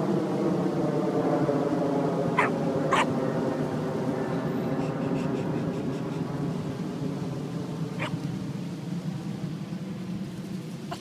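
Short, high yelps from two small dogs at play, three times: twice close together about two and a half seconds in, and once about eight seconds in. Under them runs a steady hum of several even tones that slowly fades.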